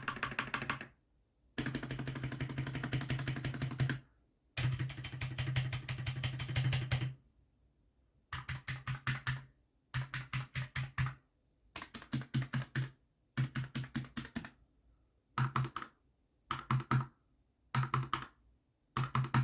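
Typing on a Keychron K10 full-size mechanical keyboard with Gateron Red linear switches. Three runs of fast, continuous keystrokes give way, about eight seconds in, to short bursts of a few separate strokes, each burst followed by a pause.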